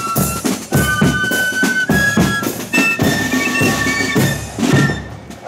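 Marching flute band playing: flutes holding a melody over steady bass-drum and drum beats. The music fades away near the end.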